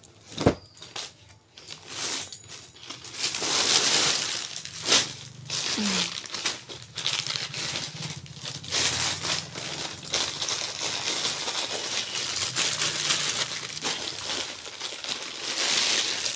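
Plastic shopping bags rustling and crinkling as hands rummage through them, with sharp crackles throughout. It is loudest about four seconds in and again near the end.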